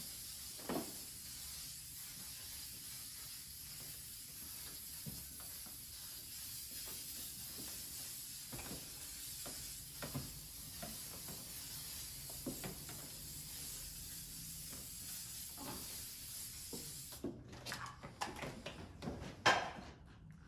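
Aerosol retouch varnish being sprayed onto an oil painting: a faint, steady hiss that cuts off about three-quarters of the way through, followed by a few faint clicks.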